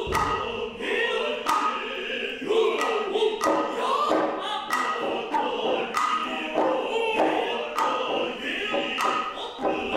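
Noh performance music: the jiutai chorus chanting in unison, punctuated by sharp, regular strokes of the hayashi drums, about one to two a second.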